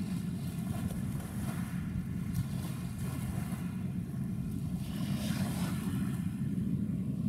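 Steady low rumble of boat engines over open water, mixed with wind buffeting the microphone and a light wash of water.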